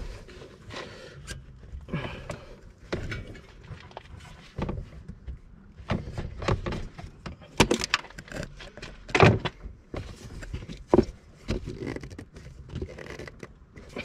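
Metal tools clinking, scraping and knocking against a tight oil filter on an ATV engine as it is worked loose, with several sharper knocks in the second half.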